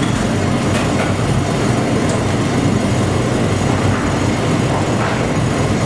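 Steady loud rumbling background noise, with a few faint knife taps on a chopping board as shallots are diced.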